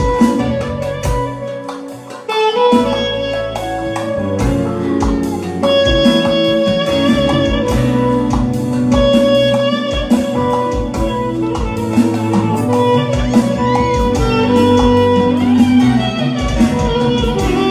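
Instrumental band music led by an electric guitar playing a melodic line, over bass and a regular drum beat.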